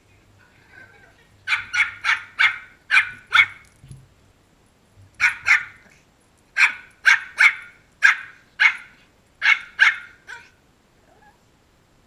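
Pomeranian barking: about fifteen short, sharp yaps in three quick runs with short pauses between them.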